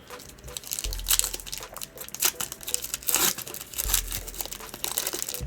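Plastic trading-card pack wrapper crinkling and tearing as it is handled and opened, in irregular rustles with a few louder crackles.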